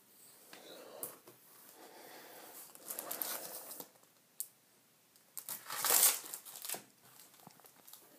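Packaging being handled, crinkling and rustling in irregular bursts, loudest about six seconds in, with a single sharp click at about four and a half seconds.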